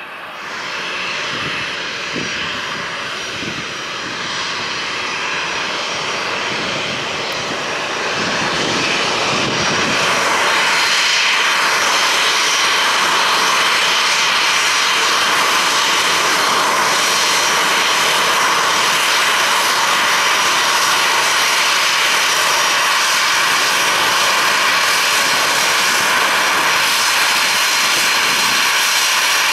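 Jet engines of a Boeing 737-800 taxiing toward and close past the listener. The noise grows louder over the first ten seconds or so, then holds as a steady loud engine rush and whine.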